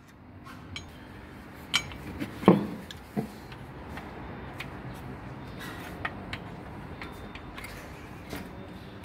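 Scattered metallic clicks, clinks and knocks of hand tools against a Toyota Coaster front brake caliper as it is pried loose with a screwdriver. The loudest knock comes about two and a half seconds in.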